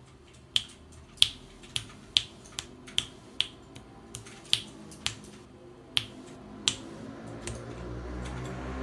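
About a dozen sharp finger snaps, irregularly spaced roughly half a second apart, from a person calling a hamster toward their hand. A low hum fades in near the end.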